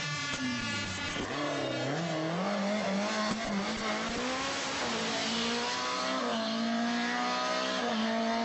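BMW M3 rally car's engine at high revs. Its note drops in the first second, then climbs again and holds high as the car accelerates, over a hiss from the tyres on the wet road.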